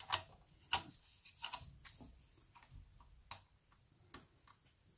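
Light, irregular clicks and taps of a multimeter and its test probe being handled against a capacitor on a bare metal radio chassis.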